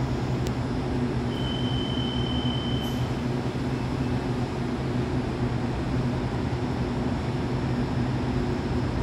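Taiwan Railway EMU800-series electric multiple unit standing at the platform, its on-board equipment giving a steady low hum. A short high beep sounds for about a second and a half, starting a little over a second in.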